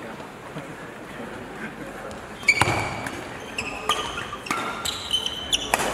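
Badminton rally beginning about two and a half seconds in: a run of sharp racket strikes on the shuttlecock mixed with short, high-pitched squeaks of court shoes on the floor.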